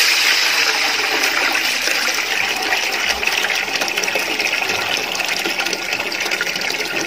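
A stream of water poured into a large metal pot of hot vegetable ghee and whole spices, gushing and splashing steadily as the pot fills.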